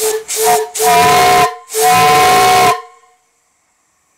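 Brass steam whistle on a steam boiler, blown by a hand lever. It gives two short toots, then two blasts of about a second each, sounding several notes together over a hiss of steam. Really loud.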